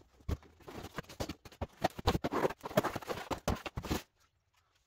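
Cardboard packaging rustling and knocking as a plastic-wrapped large-scale RC truck is lifted out of its box and set down on a concrete floor. The irregular knocks and rustles stop about four seconds in.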